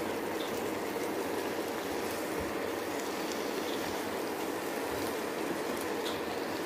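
Eggplant curry simmering in the pan: a steady bubbling sizzle with a few faint pops.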